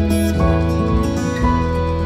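Gentle instrumental background music with plucked guitar, sustained notes changing about half a second and a second and a half in.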